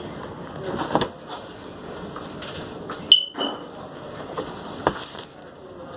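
Scattered light knocks and handling noise, with one short high-pitched electronic beep about three seconds in.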